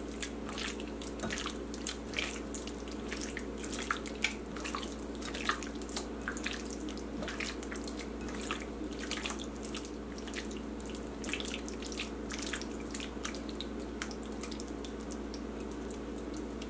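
Bare hand squishing chicken pieces in a thick wet yogurt marinade in a ceramic bowl: irregular wet squelches and smacks, over a steady low hum.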